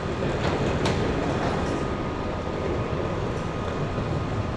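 Wheeled suitcases and kit bags rolling over a concrete floor: a steady rumble, with a sharp click a little under a second in.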